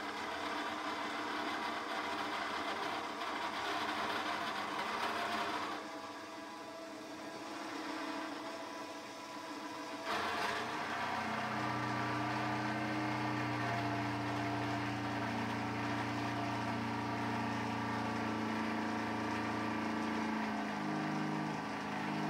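Aciera F1 milling machine running with its spindle at about 2000 RPM while the table is fed by hand lever to mill teeth in a brass ratchet wheel. A steady machine hum, with a deeper, steadier drone setting in about ten seconds in.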